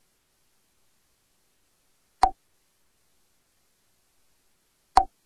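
Two identical short clicks, one about two seconds in and one near the end, repeating at an even interval of under three seconds.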